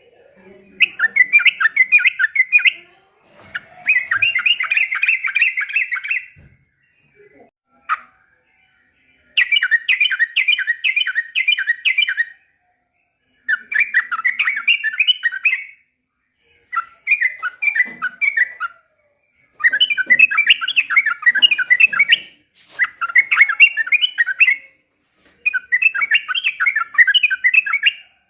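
Yellow-vented bulbul (trucukan) singing in repeated phrases of rapid, bubbling chattering notes, each phrase two to three seconds long with short pauses between.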